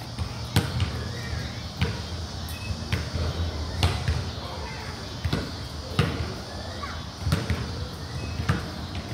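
Basketball bouncing on a concrete court: single, sharp bounces about once a second, unevenly spaced, about eight in all.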